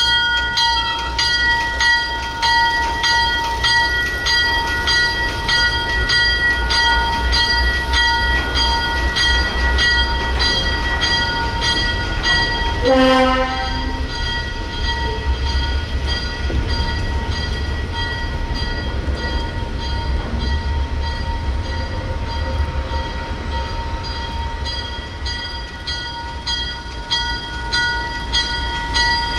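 Locomotive bell ringing steadily, about two strokes a second, over the low rumble of an ALCO S6 switcher's diesel engine as it hauls freight cars past. About 13 seconds in, a short blast of the horn.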